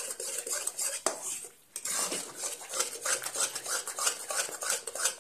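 Metal spatula scraping and stirring thick banana halwa paste around a metal kadhai in quick, repeated strokes, with a short pause about one and a half seconds in. The paste is being roasted in ghee and stirred constantly so it doesn't stick to the bottom of the pan.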